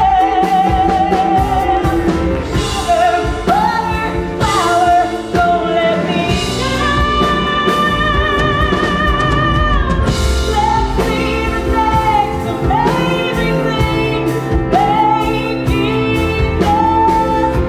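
A woman's solo singing voice performing a musical-theatre song over band accompaniment, holding long notes with vibrato, the longest in the middle.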